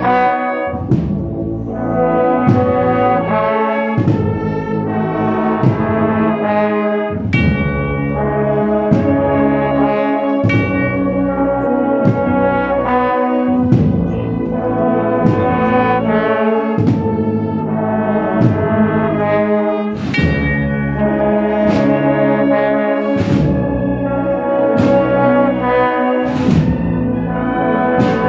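A large brass band of trumpets and trombones with drums playing a piece of music, sustained brass chords over recurring drum strokes.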